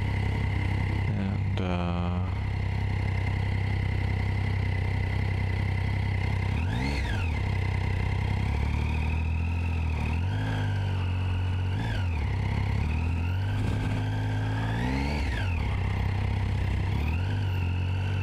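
Triumph Street Triple's three-cylinder engine idling steadily, then revving up and dropping back five times in turn as the bike pulls away and shifts up through the gears. A brief falling tone sounds about two seconds in.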